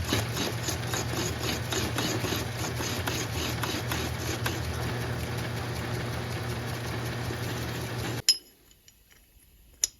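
Metal lathe from the 1950s, of the kind sold by Sears, running with a steady motor hum and rapid regular ticking. The sound cuts off abruptly about eight seconds in, and a single click follows near the end.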